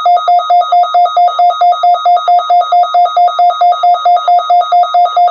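Emergency alert receiver sounding a rapid electronic alert beep, about six short beeps a second at one steady pitch, during a NOAA Weather Radio Required Weekly Test.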